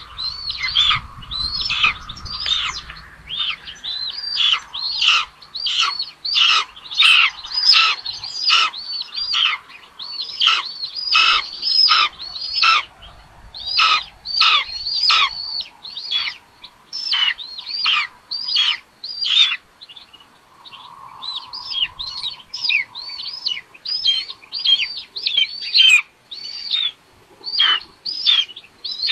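Young birds of prey in the nest calling over and over, short high calls that each fall away in pitch, about two a second, easing off briefly past the middle.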